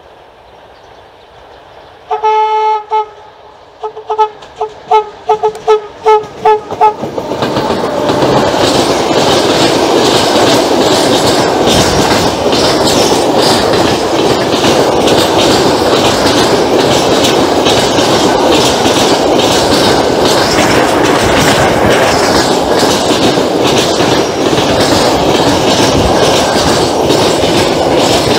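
Freight train's horn: one blast, then a rapid series of short toots, after which the train of tank wagons passes close by, running loud and steady with the clickety-clack of wheels over the rail joints.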